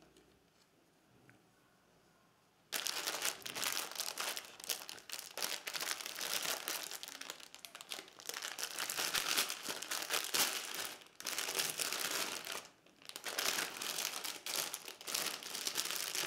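Clear plastic wrapping crinkling and rustling as hands unwrap a bundle of cotton cord. It starts about three seconds in and goes on, with two short pauses.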